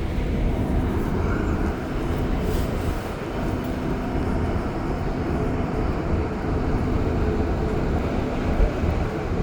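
REM light-metro train running at speed, heard from inside the car: a steady rumble of wheels on the track with a faint electric hum that comes and goes, and a brief knock near the end.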